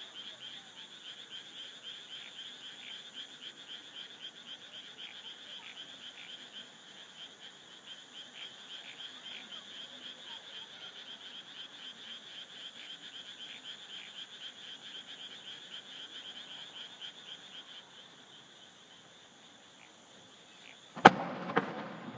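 Night chorus of frogs and insects, a dense, fast-pulsing trill that thins out near the end. Then a sharp bang, followed half a second later by a smaller one, as a firework shell is launched.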